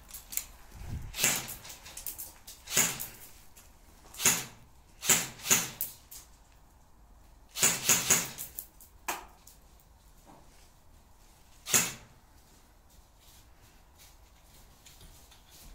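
Sharp, sudden knocks and clacks at irregular intervals, several in a quick cluster a little before the middle. The last comes around three-quarters of the way through.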